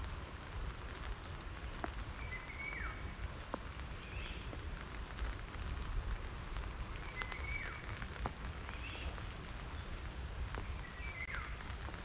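Steady rain pattering on leaves, with scattered single drop taps. A bird calls three times, a short note that holds and then drops in pitch, with softer chirps in between.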